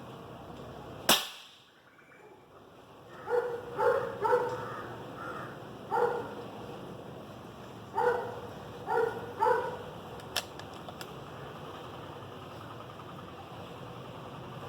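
A single sharp crack of a PCP air rifle shot about a second in, then a crow cawing, about eight short caws in small groups over the next six seconds, with two faint clicks near the end of the cawing.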